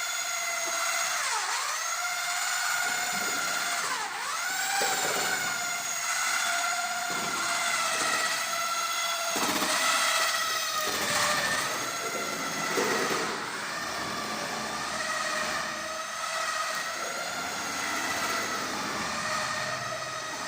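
Electric drill-type power tool motor running continuously with a high whine. Its pitch dips sharply and recovers twice in the first few seconds, as if briefly bogged down under load, then wavers a little.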